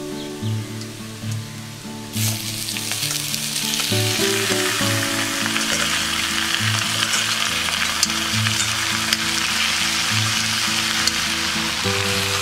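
Squid frying in hot oil in an iron kadai: loud sizzling that starts abruptly about two seconds in as the squid goes into the pan, and keeps on. Background music plays throughout.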